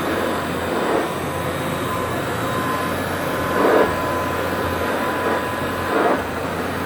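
1957 Kirby Model 517 upright vacuum cleaner running with a steady drone and a thin whine, swelling briefly three times, at about a second, near the middle and near the end.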